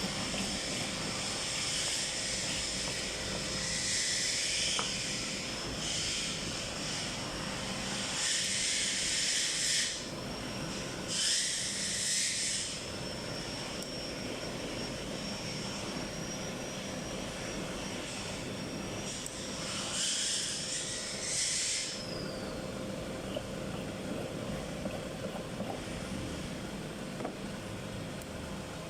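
A plastic-welding tool's small high-speed motor whining steadily, with several short bursts of hiss. About 22 seconds in, the whine falls in pitch and stops as the motor winds down. A low steady hum runs underneath.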